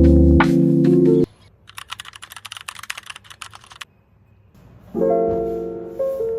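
Background music cuts off about a second in. Then comes about two seconds of quick typing on a keyboard, a fast run of light key clicks, and the music comes back near the end.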